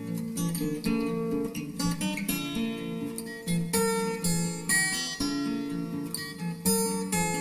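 Background music: acoustic guitar, plucked and strummed chords in a steady rhythm.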